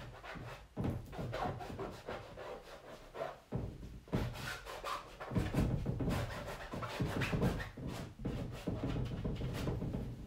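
Acrylic paint being brushed and scrubbed onto a stretched canvas: a run of irregular rubbing strokes.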